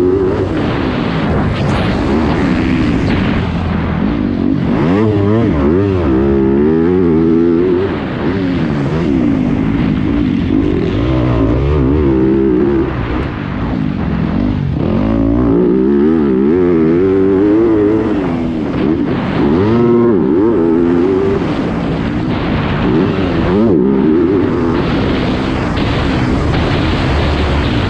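Yamaha YZ250F's 250 cc four-stroke single-cylinder engine revving hard under race throttle. Its pitch climbs and falls again and again as the rider goes on and off the gas and shifts through the gears, with two short dips in loudness.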